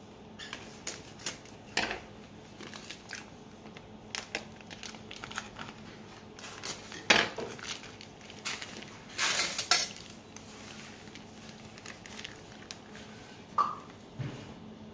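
Plating sounds: a plastic vacuum bag of boiled baby potatoes being handled and rustled, and a metal spoon clicking and clinking against the bag and plate in scattered short knocks. There is a brief ringing clink near the end.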